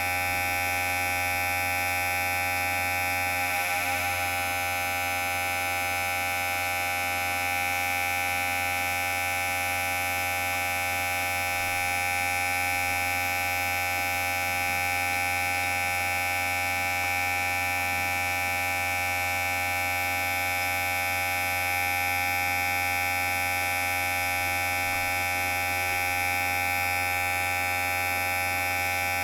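Electric hair clipper running steadily: a continuous, even buzz with a low hum under it, its pitch holding constant.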